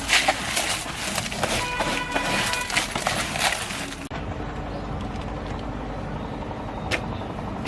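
Rapid irregular knocks and clatter with a brief ringing tone, then after a sudden cut a steady low hum with a single sharp click.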